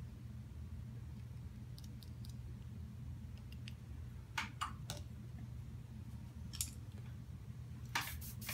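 Scattered light clicks and taps as paint is dropped from small bottles into an Iwata airbrush and the brush is handled, over a steady low hum. Right near the end a short hiss of airbrush spray starts.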